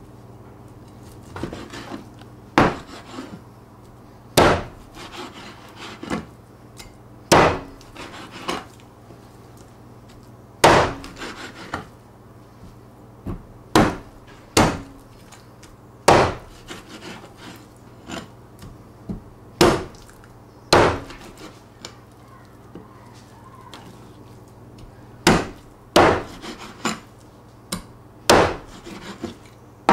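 Meat cleaver chopping a raw chicken through meat and bone onto a plastic cutting board: sharp single chops, about twenty in all, coming irregularly with pauses of one to three seconds between them.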